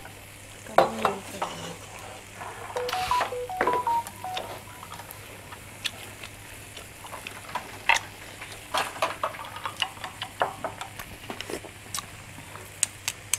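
Meat sizzling on a tabletop barbecue grill pan, with frequent sharp clinks and taps of chopsticks and spoons against the pan, bowls and glasses. About three seconds in comes a brief run of short tones at different pitches.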